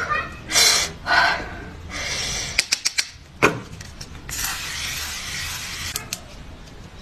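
Close-up skincare handling sounds: short rubbing swishes, a quick run of sharp clicks and taps, then a hiss lasting over a second, followed by a few more clicks.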